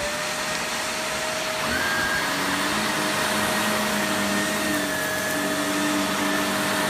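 Shark Navigator Lift-Away Professional NV356E upright vacuum running at full speed, its motor just spun up to a steady whine. About two seconds in, a higher whine and a lower hum join in and the sound gets slightly louder.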